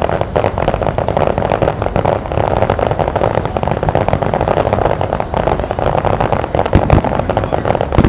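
Fireworks crackling: a dense, continuous fizz of many small pops from crackling stars, with a few louder bangs near the end.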